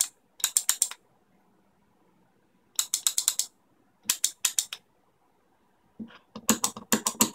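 A 3D-printed pushbutton being pressed over and over, its micro switch clicking in quick runs of sharp clicks, about five bursts with short pauses between them.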